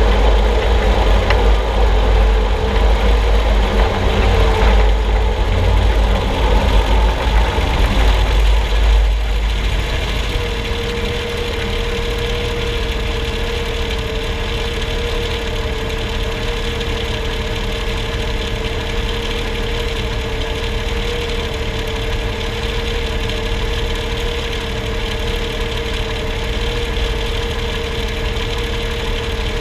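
Truck driving, heard from under its front axle: heavy road and drivetrain rumble that, about ten seconds in, settles as the truck stops into a steady engine idle with a constant mid-pitched hum.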